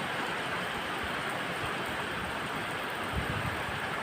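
Steady hiss of wind and rain, with low gusts buffeting the microphone, the strongest about three seconds in.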